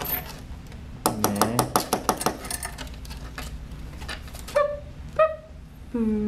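Yorkie puppy crying out while being held: two short yelps about four and a half and five seconds in, then a long cry that starts near the end and rises in pitch. Before the yelps comes a quick run of sharp clicks and taps.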